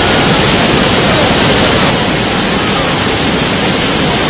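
Loud, steady rushing of a waterfall, stepping down slightly about two seconds in.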